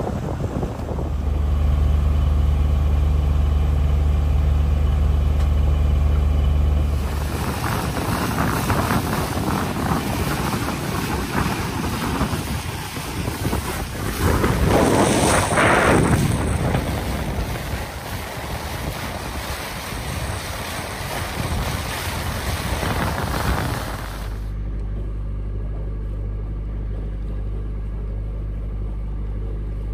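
A sailboat's inboard engine running with a steady low hum. For most of the middle, rushing wind and water noise covers it, swelling to a louder rush about fifteen seconds in. The engine's hum comes back plainly near the end.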